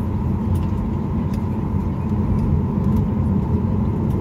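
Cabin noise of a Boeing 737-800 taxiing: its CFM56 engines and the airframe give a steady low rumble, with a faint steady tone on top.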